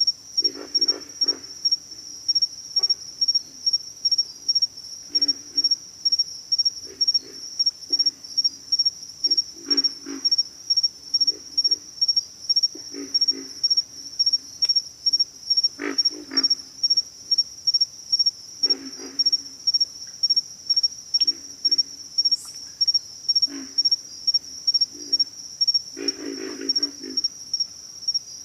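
Pig frogs calling: bouts of low, rough, rapidly repeated grunts every few seconds, the loudest about 16 and 26 seconds in, over a steady high-pitched chorus pulsing about twice a second.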